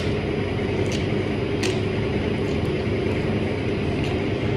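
Steady mechanical hum, even and unchanging, with a few faint short clicks of a person chewing soft bread.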